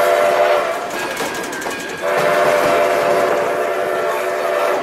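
Steam locomotive whistle blowing: the end of one blast about half a second in, then a longer blast of about two and a half seconds, over the rumble and clickety-clack of the moving train.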